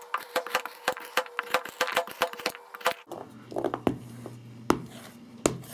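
A carrot being chopped with a broad, cleaver-style kitchen knife on an iPad's glass screen under a plastic film protector. The blade taps the screen quickly, about five times a second, for about three seconds, then strikes a few more times more slowly.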